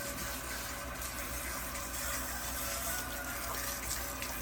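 Water spraying steadily onto a concrete dog-run floor as dogs get a cool-down shower, a continuous hiss.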